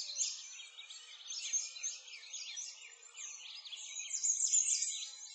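Songbirds chirping and singing, many quick overlapping calls in a dense chorus, loudest about four to five seconds in.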